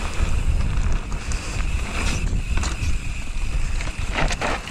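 Wind buffeting the microphone of a handlebar-mounted action camera as a mountain bike rolls along a dirt track, with tyre noise and a few clicks and rattles from the bike. The loudest rattles come in a short cluster near the end.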